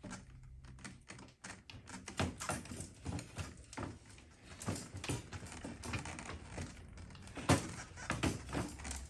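Irregular light metallic clicks and taps of a socket wrench working at the cylinder head of a small Honda XL70 engine, loosening the spark plug, with one louder knock about seven and a half seconds in.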